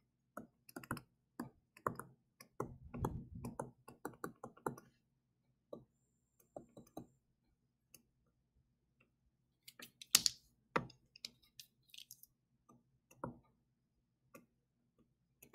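Irregular light clicks and taps of a stylus on a tablet screen while handwriting, dense for the first few seconds, sparse in the middle, then another flurry later, over a faint steady low hum.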